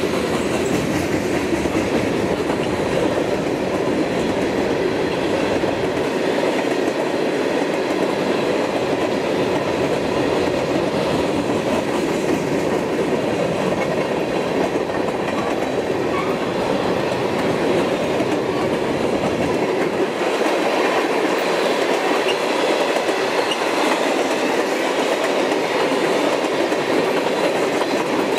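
Freight train's boxcars and tank cars rolling past close by: a steady, loud rumble of steel wheels on the rails, with the deepest rumble thinning out about a third of the way through and again later.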